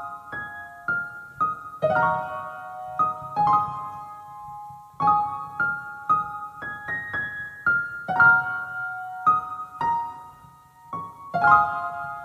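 Background music: a soft piano (or electric piano) playing a slow melody over chords, notes struck one after another and left to ring.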